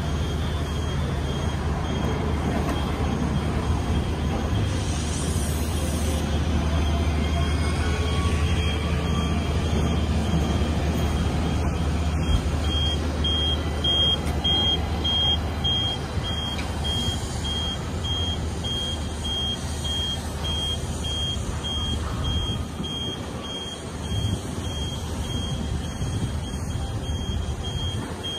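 Light rail tram running through the station with a low steady hum that fades away near the end. From about twelve seconds in, a high electronic beeping repeats about twice a second.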